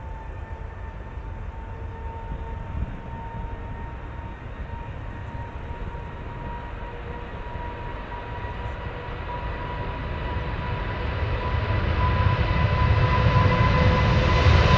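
Jet airliner approaching: a rumble and a steady engine whine that grow steadily louder over the second half.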